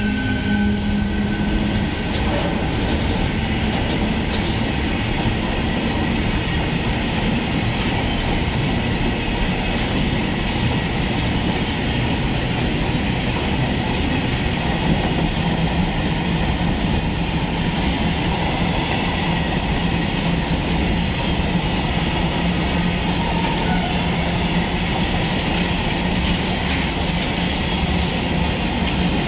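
Open steel freight wagons of a long freight train rolling past at speed, a steady rumble and clatter of wheels on the rails. A steady low hum joins about halfway through.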